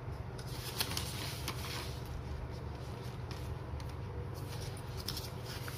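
Faint handling noises, light rustles and a few soft clicks, over a steady low hum.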